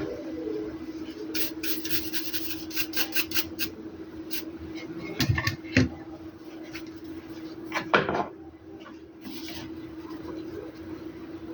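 Small hard objects being handled on a work surface: a run of quick light clicks, then a few knocks, the loudest about eight seconds in, over a steady hum.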